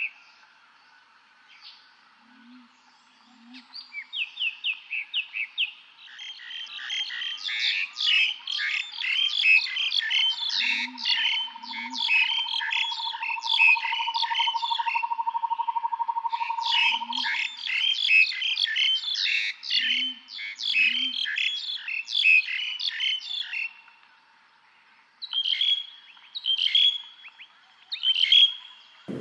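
Birds chirping in fast trains of short, high notes. A brief trill comes a couple of seconds in, then a dense overlapping run of chirps for most of the middle, and a few separate calls near the end.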